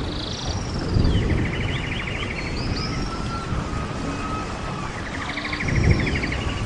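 Birds chirping and whistling, with a buzzy trill, over a steady low rumble. The same phrase of chirps and trill comes twice, about five seconds apart, as in a looped birdsong recording.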